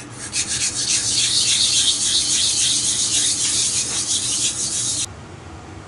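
Clear epoxy sample mount being hand-sanded on wet 220-grit sandpaper: a fast, scratchy back-and-forth rasp of coarse grinding toward the plane of interest. It cuts off abruptly about five seconds in.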